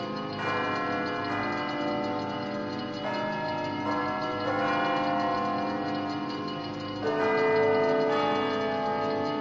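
Instrumental music: sustained chords that change every few seconds and swell slightly about seven seconds in.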